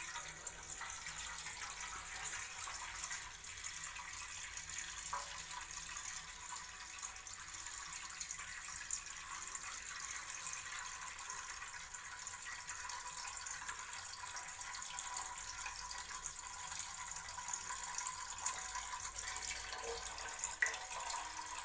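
A thin, steady stream of the clear watery layer from separated coconut milk running out of a hole in the bottom of a plastic bag into a metal pot. The water is being drained off first so that only the thick coconut milk stays in the bag.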